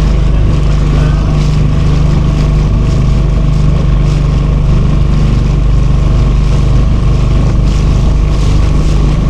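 A small motorboat's engine running at a steady speed, a constant low hum with a faint steady whine above it.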